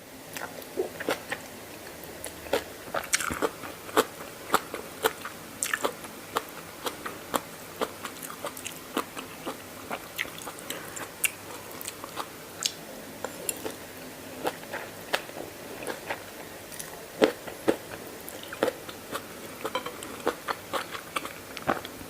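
Close-up crunchy chewing and biting of mee yam, a spicy Thai noodle salad, with many sharp, irregular crunches.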